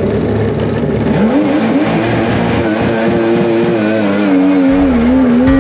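Mini jet boat engine revving up sharply about a second in, then running hard with its pitch wavering up and down as the throttle changes. Under it is a steady rush of water and spray.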